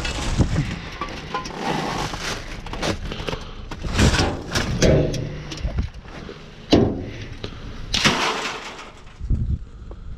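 Junk in a dumpster being shifted by hand, a metal wire grid frame among cardboard boxes: rustling and scraping with several sharp clattering knocks.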